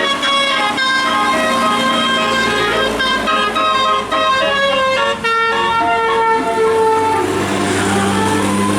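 Basuri telolet musical horn on a bus playing a tune: a chord of steady horn tones stepping quickly from note to note. About seven seconds in the tune stops and a lower steady drone with a rushing noise takes over.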